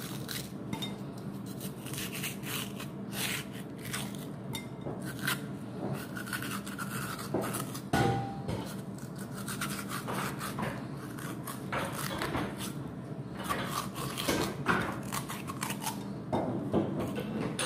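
Metal vegetable corer scraping and twisting inside a peeled raw potato, hollowing it out in quick, irregular rasping strokes, with a sharper knock about halfway through.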